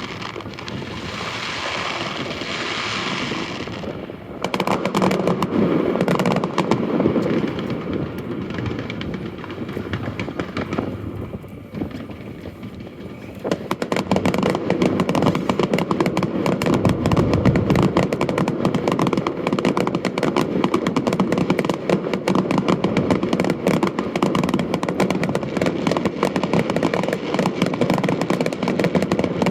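Aerial fireworks going off: a hiss at first, then bursts, and from about halfway through a dense, unbroken barrage of rapid crackling reports.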